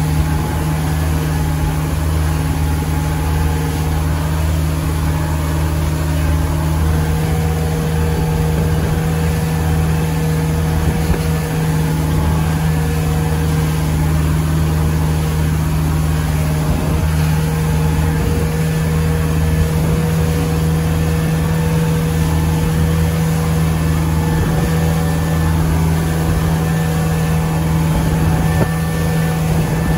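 Motorboat engine running steadily at speed while towing, a constant low drone, with the rush of water from the wake.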